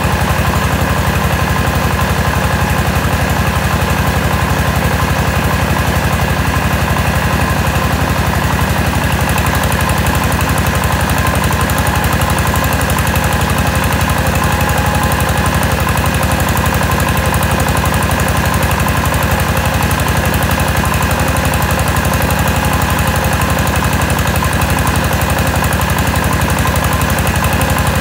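Mobile rice mill running steadily while milling rice: its engine and milling machinery make a loud, continuous mechanical sound with a fast, even beat.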